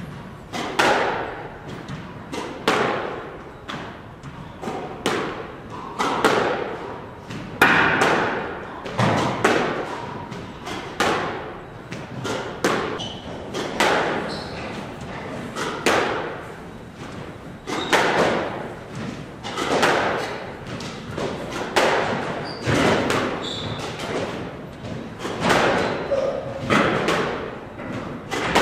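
Squash ball being driven back and forth in a rally: sharp racket strikes and thuds of the ball off the court walls, about one to two a second, each with a short echo in the enclosed court.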